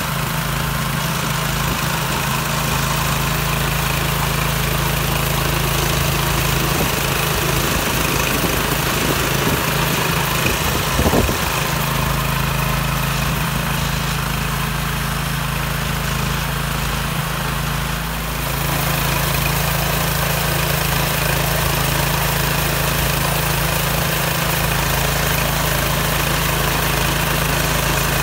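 Small petrol engine of a hydraulic weed-brushing machine running steadily at constant speed, while its spinning wire brush scrubs over paving stones and the kerb edge. There is a brief louder clatter about eleven seconds in.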